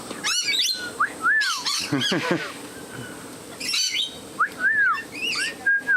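Rainbow lorikeets screeching and chattering close by, mixed with several short whistles that rise and fall in pitch.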